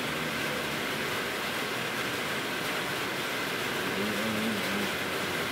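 Steady hiss of falling rain, with a short low murmur about four seconds in.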